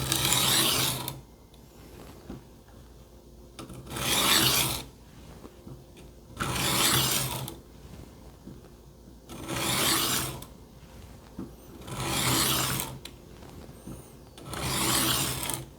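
Dull kitchen knife blade drawn across a Work Sharp Benchstone sharpening plate: six slow, rasping strokes, each about a second long and two to three seconds apart.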